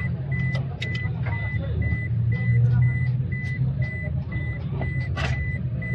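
A short, high electronic beep repeating evenly about two and a half times a second over a steady low mechanical hum, with a few sharp clicks from handling parts.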